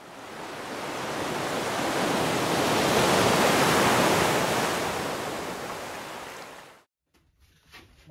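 Ocean waves sound effect: a single surge of surf that swells to its loudest about three seconds in and washes back out, cutting off abruptly about seven seconds in. A few faint clicks follow near the end.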